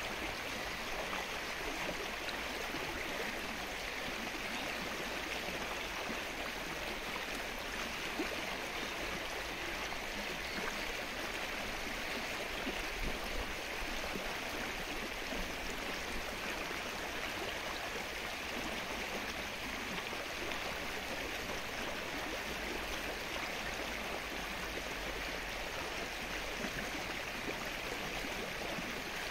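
Rain falling on a lake's open water, a steady, even hiss of countless small drops hitting the surface.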